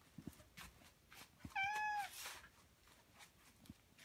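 Domestic cat meowing once, a short greeting meow about halfway through that drops in pitch at its end, with a few faint clicks around it.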